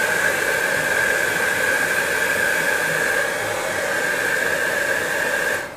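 Hair dryer blowing steadily with a high whine over the rush of air, switched off near the end. It is drying a freshly airbrushed layer of acrylic flesh-tone paint before the next coat.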